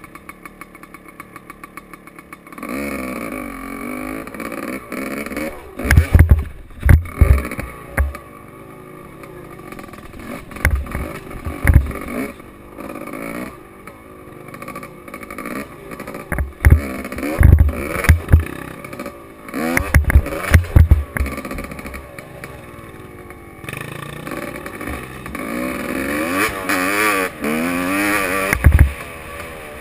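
Gas Gas EC 250 enduro motorcycle heard from a camera mounted on the bike. Its engine ticks over at low revs for the first couple of seconds, then revs up and down repeatedly as it is ridden. Several loud, short, low thumps come through.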